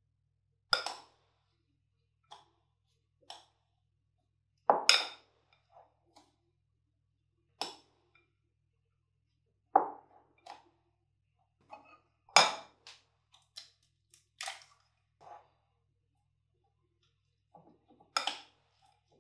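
Metal spoon clinking against a glass mixing bowl while stirring grated potato, salami and flour: about a dozen sharp, irregular clinks with short gaps between them.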